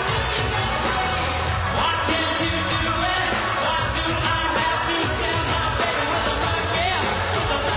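Live concert performance of an upbeat pop song: full band playing at a steady level, with singing over it.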